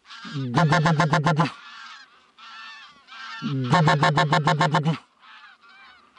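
Geese honking: two loud runs of rapid, evenly spaced honks, each about a second and a half long, one near the start and one about three and a half seconds in, with fainter honking in between.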